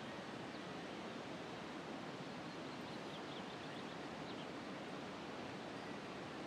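Steady, even outdoor background hiss, with a few faint, short, high chirps in the first half.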